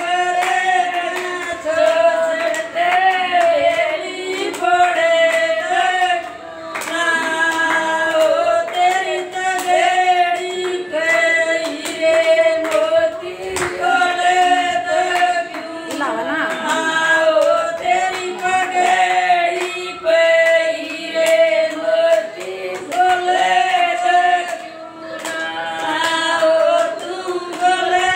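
Three women singing a sagai geet, a traditional Indian engagement folk song, together without instruments, keeping time with steady hand claps.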